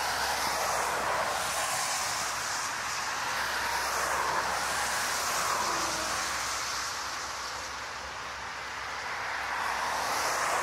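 Lockheed C-130 Hercules rolling down a wet runway, its four turboprop engines and propellers running with a steady rushing noise mixed with tyre spray. The noise eases off about eight seconds in and builds again near the end.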